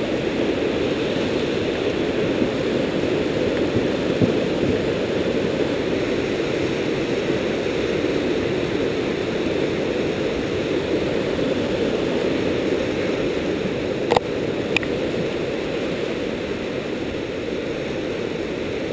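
A fast creek running high over rocks in whitewater rapids, a steady low rush of water. Two short sharp clicks come about fourteen seconds in.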